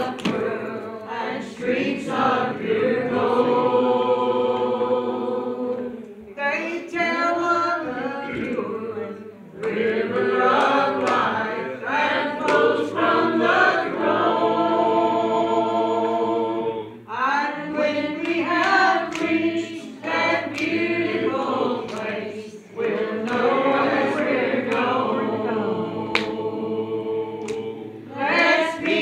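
A church congregation singing a hymn together, many voices in long held lines with short breaks between phrases.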